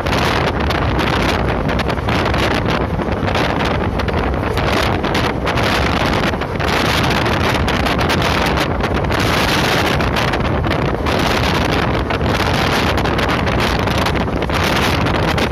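Loud, steady wind buffeting a phone's microphone held at the window of a fast-moving passenger train, with the train's running noise beneath it.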